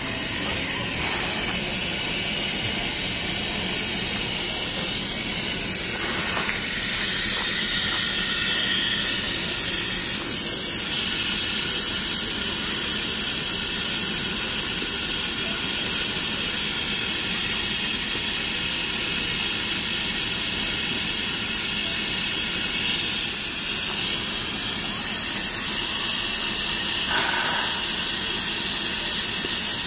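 Steam hissing steadily from vents on top of the boiler of Dixiana, a Shay geared steam locomotive standing in steam. It is a high, continuous hiss that builds a little over the first few seconds and then holds steady.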